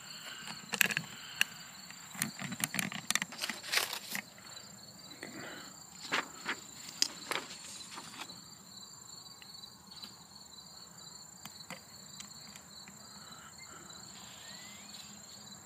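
Crickets chirping steadily in the background, with rustling and sharp handling clicks from a paper target being handled in the first half.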